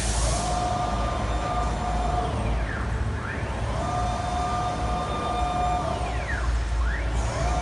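CNC wood router's gantry drive motors whining as the gantry travels back and forth along the table, over a low steady hum. On each pass the whine rises in pitch as the gantry speeds up, holds steady, then falls as it slows and reverses, about three passes.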